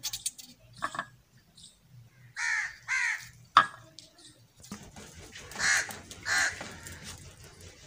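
A crow cawing in pairs: two caws about half a second apart, then two more about three seconds later, with a single sharp knock in between.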